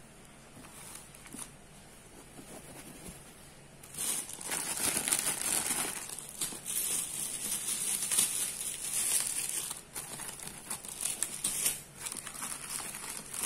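Plastic packaging crinkling and rustling as hands handle and lift plastic-wrapped accessories, starting about four seconds in after a quiet stretch and going on in irregular bursts.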